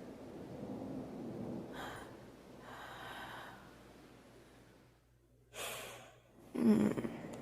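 A woman breathing softly and sighing close to the microphone. A few slow breaths come first, then a short airy breath and a louder voiced sigh near the end.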